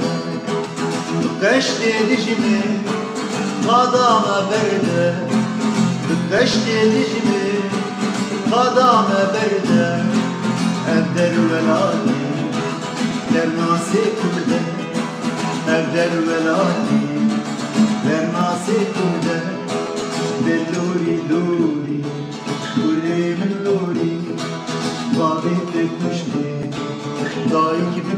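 Music: a song with plucked guitar accompaniment and a singing voice.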